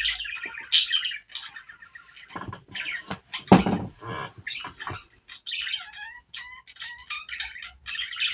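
A bird chirping and squawking in short repeated calls, some gliding in pitch, with a single thump about three and a half seconds in.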